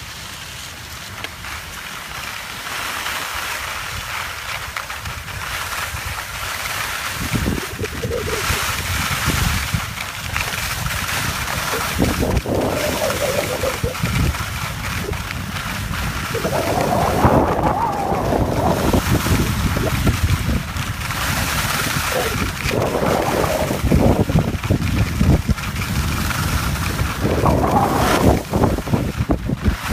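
Wind rushing over the microphone of a skier's handheld camera, with the hiss of skis sliding on groomed snow, growing louder as the run picks up speed, with gusty rumbling surges.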